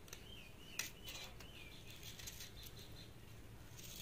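Faint knife clicks and scrapes as peach flesh is cut from the stone over a steel plate, with one sharper click about a second in. Warbling bird chirps sound in the background during the first couple of seconds.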